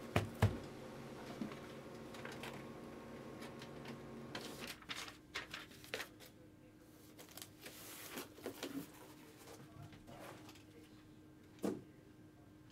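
Light knocks and taps from a boxed trading-card hobby box being handled and set down on a tabletop: two sharp knocks at the start, a run of short taps and clicks a few seconds in, and one more knock near the end, over a faint steady hum.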